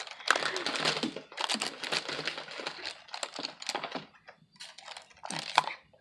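Makeup brushes clicking and clattering against each other as they are rummaged through by hand, with some crinkling.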